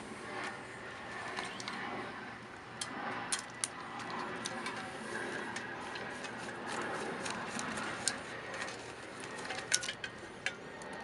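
Sharp plastic clicks and snaps as the white plastic shipping disc is worked off an A/C refrigerant recharge kit, the loudest near the end. Under them runs the steady sound of the car's engine idling.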